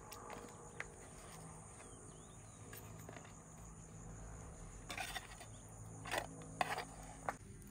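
Crickets chirring steadily. In the second half come a few light clinks and knocks of a fish and a metal spoon being handled on a metal tray.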